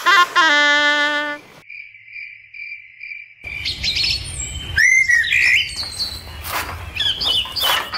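A short saxophone-like musical phrase ends about a second and a half in. Then a steady, high cricket-like insect trill runs for about two seconds, and after it many birds chirp and call over a low rumble: a night-into-dawn countryside ambience.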